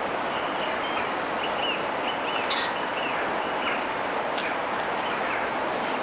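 Faint, short chirps and calls of small birds scattered over a steady rushing hiss with a thin, high, constant whine, as picked up by a trail camera's microphone.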